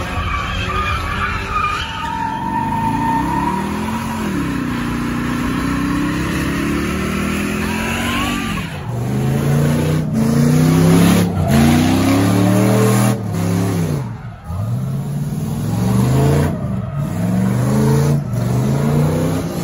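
Engines revving hard with tyres squealing and skidding as cars do donuts and a burnout on pavement. In the second half the engine is revved up and let back down over and over, about once a second.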